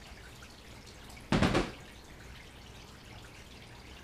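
Faint room hiss with one short knock or clatter about a second and a half in, from a case or gear being handled out of sight.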